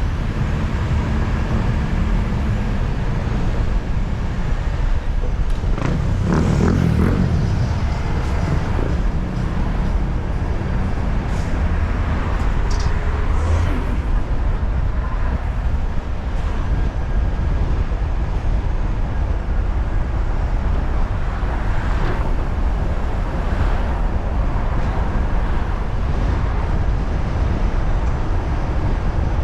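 Road traffic while driving in a city: a steady low rumble of engine and tyre noise, with a louder vehicle passing about six seconds in.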